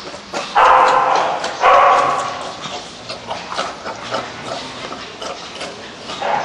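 Black-and-white pet pig eating from a bowl, with small chewing clicks throughout. It lets out two loud cries about a second long each, about half a second and a second and a half in.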